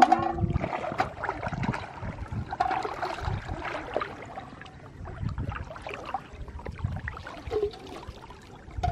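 Pond water sloshing and splashing irregularly as a person wades in deeper, with low swishes from the legs pushing through the water.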